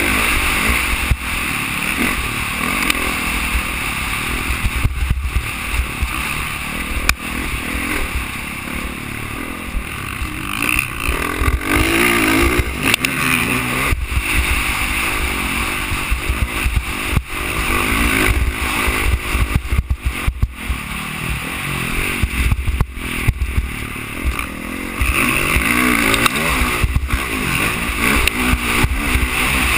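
Dirt bike engine running hard and revving up and down while being ridden over a motocross track, heard from a helmet-mounted camera, with frequent short knocks.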